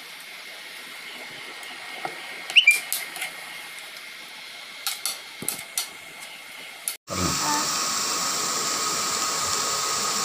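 Steady hiss of a pan of grated beetroot and coconut cooking on an induction cooktop, with a few light clicks and scrapes of a spoon in the pan. The hiss cuts out briefly about seven seconds in and comes back louder.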